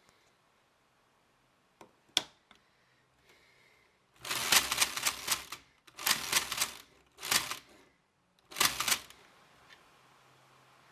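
Lego full-auto brick-shooting rifle mechanism cycling in four bursts of rapid plastic clacking, the first about a second and a half long and the rest shorter, after two single clicks.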